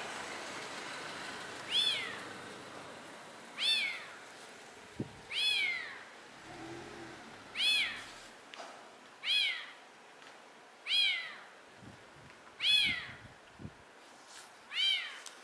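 Calico domestic cat meowing repeatedly: eight high meows, one about every two seconds, each rising then falling in pitch.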